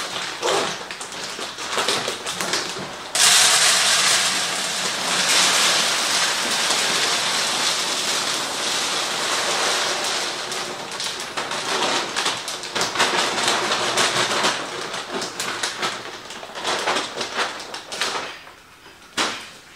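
Dry dog kibble pouring out of a large bag into a container: a dense, steady rush that starts suddenly about three seconds in and tails off near the end, with short knocks and handling noise from the bag before it.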